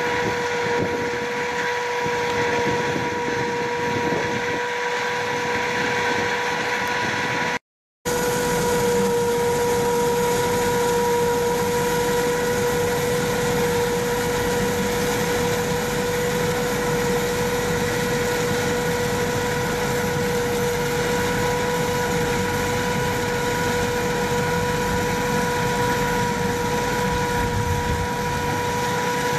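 A tractor-driven pumpkin seed harvester running steadily as it throws out pumpkin pulp: a dense mechanical drone carrying a constant high whine. The sound cuts out completely for a moment about eight seconds in.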